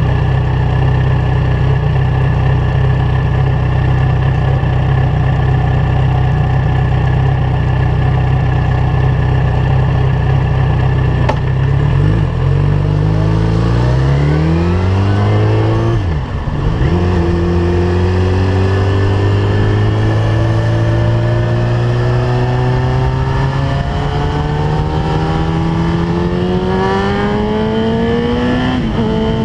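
Yamaha FZ1's inline-four engine through a LeoVince GP-style aftermarket exhaust, idling steadily, then pulling away. Its pitch climbs quickly through the low gears, dips at a gear change about sixteen seconds in, then rises steadily under acceleration to another shift near the end.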